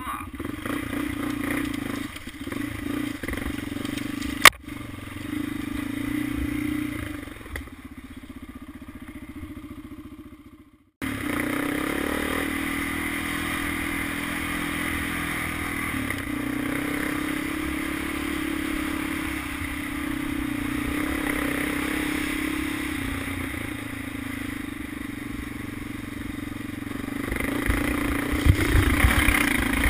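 Honda 400EX ATV's single-cylinder four-stroke engine running at trail-riding speed, with the quad's body rattling over the ground. There is a single sharp click about four and a half seconds in, and the sound cuts out for a moment about eleven seconds in. Near the end the engine and rattling grow louder and rougher.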